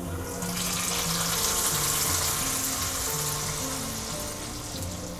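A tadka of hot oil and browned chopped garlic poured into simmering dal, sizzling. The hiss starts about half a second in, swells, then slowly dies down.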